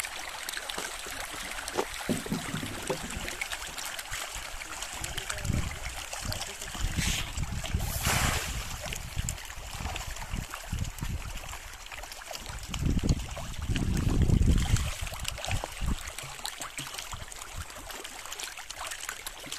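Steady splashing and trickling of water across a fish pond, with a louder rushing stretch about eight seconds in. Low rumbles come and go underneath, the loudest about 13 to 15 seconds in.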